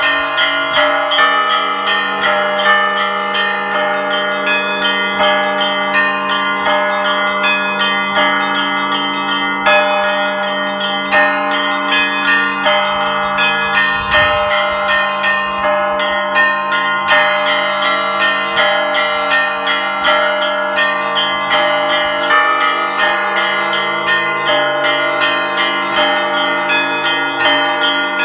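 Orthodox monastery bells rung in a continuous peal (zvon): small bells struck in a quick, steady rhythm over the long ringing hum of deeper, larger bells.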